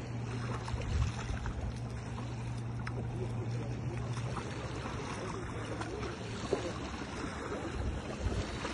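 A steady low hum under an even rushing noise; the hum stops about six seconds in.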